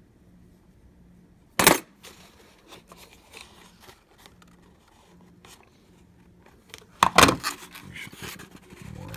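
Metal deadbolt lock hardware being handled: one sharp clack nearly two seconds in, light clicks, then a cluster of clattering knocks about seven seconds in, followed by rubbing and scraping.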